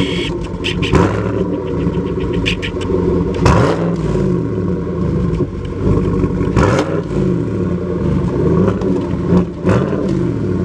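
2017 Chevy Silverado LTZ's V8 running through a mostly straight-piped exhaust (factory mufflers removed, one aftermarket muffler, dual chrome tips), idling and revved in about four short blips roughly every three seconds, the pitch falling back to idle after each.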